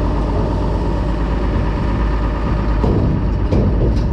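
Steady, loud drone of the engine-driven grain auger running as shelled corn is augered into a storage bin.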